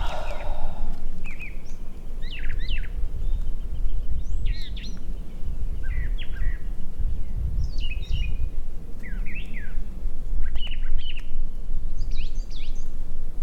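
Several songbirds singing, with short chirping phrases that glide quickly up and down, repeating every second or so. Underneath runs a constant low rumble.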